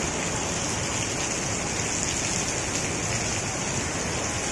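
Heavy rain falling steadily: a dense, even hiss with no break.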